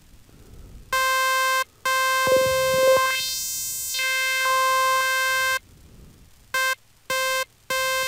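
Buzzy synthesizer note near C5, rich in overtones, from FL Studio's 3x Osc played through a Fruity Love Philter high-pass filter. A short note comes about a second in, then a long note of about four seconds whose upper tone sweeps hollow and back, then quick short stabs near the end.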